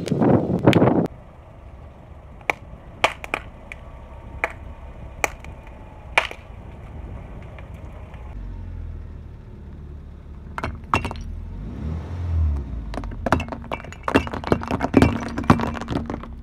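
A car tyre rolling over and crushing soft packets of clay, giving scattered sharp pops, then a low rumble as the car creeps forward. Near the end, a quick run of cracks and clinks as small glazed clay bowls shatter under the tyre.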